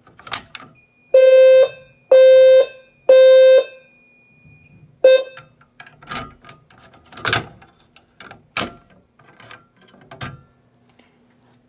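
Fire alarm horn sounding in the temporal-three evacuation pattern: three half-second blasts a second apart, then a fourth cut off almost at once, set off by a pull station during an audible walk test. A click comes just before the blasts, and a run of clicks and knocks follows them.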